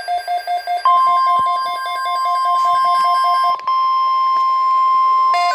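Alert audio from a weather-radio receiver. A pulsing electronic alert beep, about three to four a second, is joined about a second in by the steady NOAA Weather Radio 1050 Hz warning alarm tone, the signal that a watch or warning follows (here a severe thunderstorm watch). Near the end a different stepping electronic alert melody starts.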